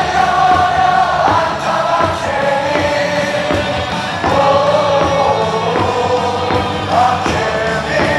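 A large crowd of baseball fans singing a cheer song together in long, held notes over loud amplified music.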